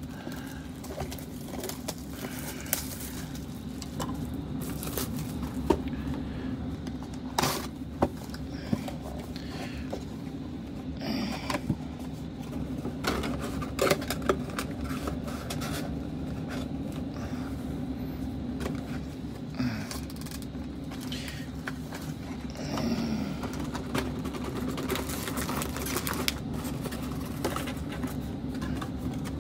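A shrink-wrapped cardboard box of trading cards being unwrapped and opened by hand: scattered crinkles, scrapes and taps of plastic wrap, cardboard and card packs being handled, over a steady low hum.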